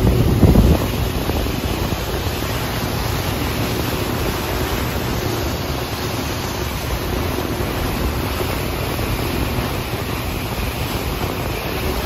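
Wind buffeting the microphone over the rush of churning wake water behind a moving wake boat, a steady noisy roar with a brief louder gust about half a second in.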